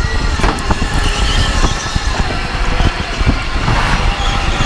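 Electric go-kart being driven around a track, heard from on board: a steady electric motor whine over a heavy low rumble, with a few short knocks.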